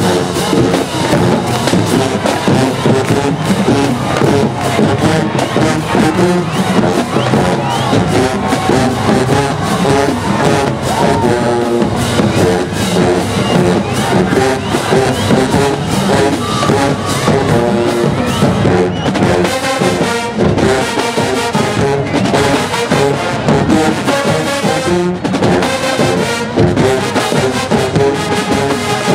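Marching band playing loudly: a full brass section over a drumline keeping a steady beat.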